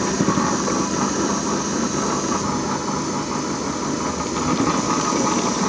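Mammotion LUBA 2 battery-electric robot lawn mower running steadily as it drives and cuts short grass.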